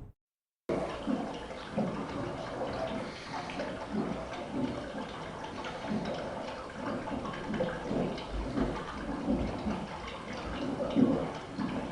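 Water running and splashing unevenly, starting abruptly after a brief silence.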